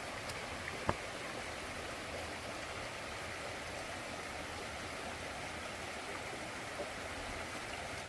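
Steady rushing of flowing stream water, with a faint click about a second in.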